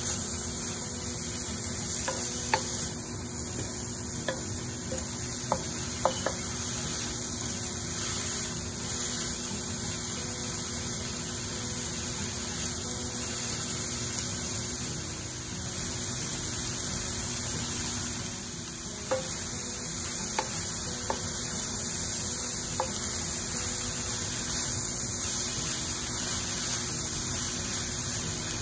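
Vegetables and pork sizzling in a hot wok as they are stir-fried, over a steady hum. A wooden spatula knocks against the pan in short clicks, several in the first few seconds and a few more past the middle.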